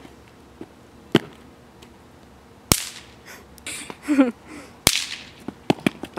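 Sharp cracks of throw-down bang snaps (snap pops) going off: single loud pops about one, three and five seconds in, then a quick run of smaller snaps near the end.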